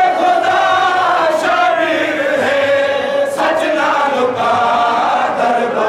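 Many men's voices chanting a noha, a Shia mourning lament, together in unison, a sustained melodic line.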